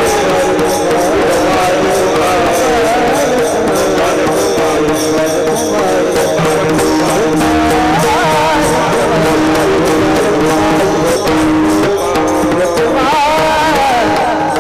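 Varkari devotional singing: a male voice sings long, wavering ornamented notes over steady sustained accompaniment notes, with pakhawaj drum strokes and metallic cymbal beats keeping the rhythm.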